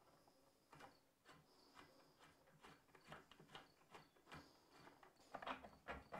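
Faint scattered clicks and small knocks of hardware being worked by hand on a wooden workbench leg frame, with a few louder wooden knocks near the end as a long wooden rail is handled.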